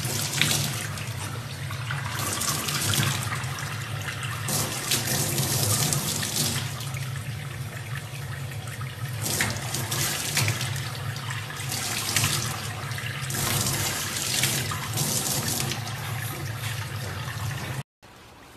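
Tap water running from a faucet into a stainless steel sink, splashing off a baby chimpanzee's hands and body, over a steady low hum. The sound drops off abruptly near the end.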